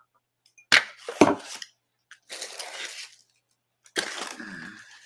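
Ceramic mug set down on a table with two sharp knocks about a second in, then rustling and a bump as a cardboard mailing box is picked up and handled.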